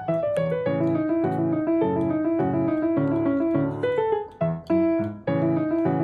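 Background piano music: a bouncy, evenly repeated chord accompaniment under a melody, briefly dropping out twice between about four and five seconds in.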